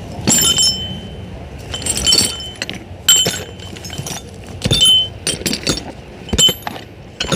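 Metal tools and transmission parts clinking and knocking against each other and the work surface, about eight to ten separate strikes, several with a short high metallic ring.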